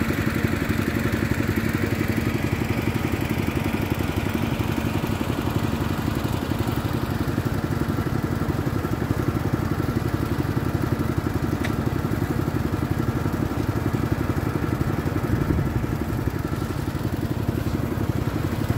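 Water pump engine running steadily at a constant speed, draining the prawn pond through a large pipe.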